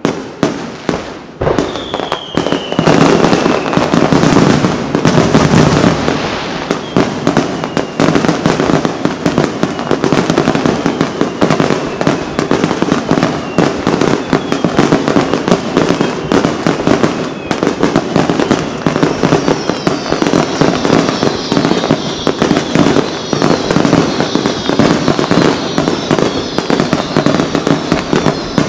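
Aerial fireworks display: a dense, nearly unbroken barrage of shell bursts going off. High whistles that fall in pitch join in during the last third.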